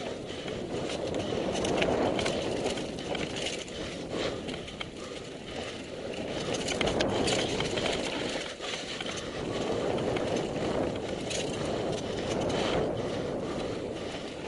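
Mountain bike riding down a trail at speed: a rushing noise of wind and tyres on the ground that swells and fades every few seconds, with scattered clicks and rattles from the bike.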